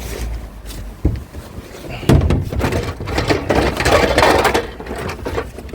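Scrap wires and cables being handled and gathered up: a knock about a second in, a heavier thump about two seconds in, then a few seconds of rustling and clattering.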